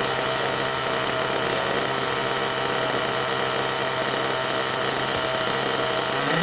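Small nitro model engine of a radio-controlled bus running steadily at low revs, its pitch starting to rise right at the end.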